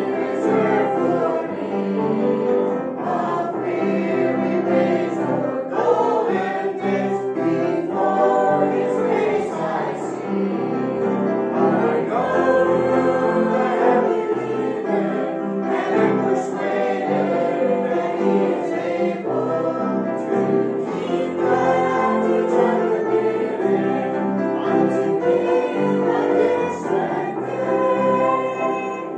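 A congregation singing a hymn together in continuous, steady song.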